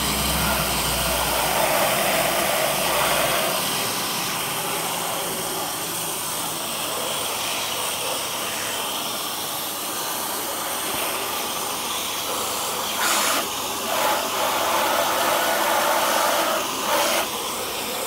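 High-power hose spraying a jet of water into the fins of a heat pump condenser dryer's heat exchanger, a steady hiss and splash as it flushes lint and dirt through. A low hum underneath stops about three seconds in.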